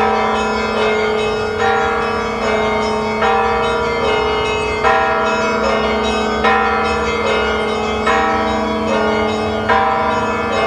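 Orthodox cathedral bells ringing: a low bell hums steadily under smaller bells struck in an even rhythm, a little faster than once a second, their tones overlapping.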